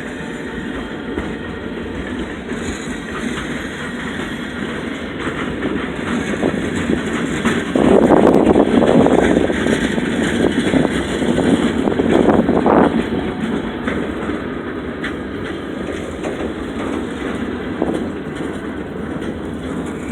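Freight train cars rolling past on the rails, a steady rumble and rattle of wheels. Strong blizzard wind buffets the microphone, with louder gusts from about eight to thirteen seconds in.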